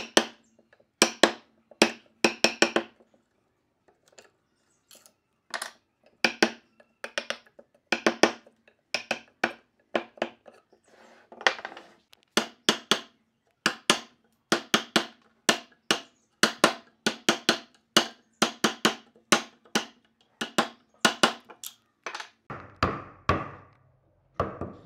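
Wood chisel struck repeatedly, chopping a mortise into a timber beam: sharp, slightly ringing knocks in runs of a few strokes with short pauses. Near the end the knocks turn deeper and heavier.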